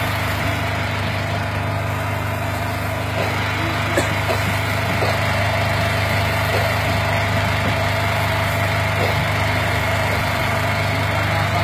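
Engine on a fishing boat running steadily at a constant drone, with a few faint short ticks about three to seven seconds in.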